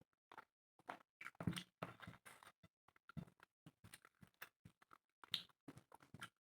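Close-miked eating sounds: a quick run of short, separate chewing and mouth noises, a few every second, from someone eating chicken and rice.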